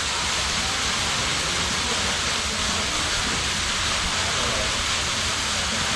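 Snowmelt-fed waterfall rushing steadily, an even hiss of falling water.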